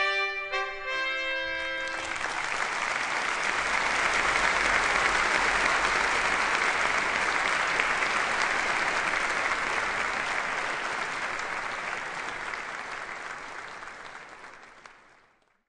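The last notes of a brass fanfare end about two seconds in. A large audience then applauds steadily, fading out near the end.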